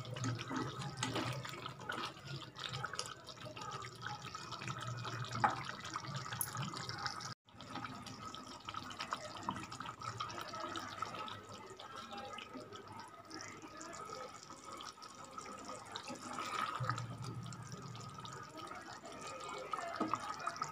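A metal ladle scooping thick chicken gravy out of a kadai and pouring it into a steel bowl: wet slopping and pouring, with light clinks of the ladle against the pans.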